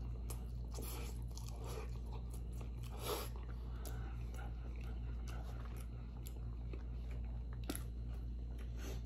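Close-up chewing of chili cheese fries: wet mouth sounds and small clicks. A plastic fork scrapes in the foam takeout box about three seconds in. A steady low hum runs underneath.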